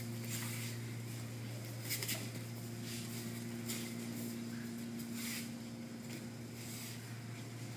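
A steady low hum, with a few short, soft swishes and taps from two aikido practitioners moving and throwing on the mats: uniform fabric brushing and bare feet on the mat.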